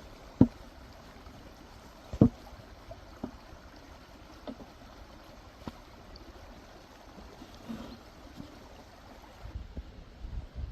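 A few sharp knocks, two loud ones in the first couple of seconds and fainter single ones after, over a steady hiss, with a low rumble near the end.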